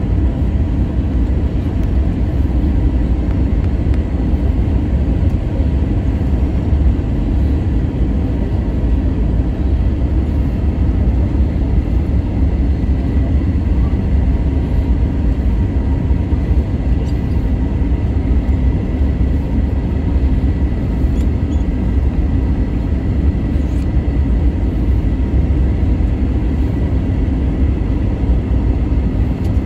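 Steady low rumble inside an airliner cabin descending on approach to land, with a faint steady high whine over it.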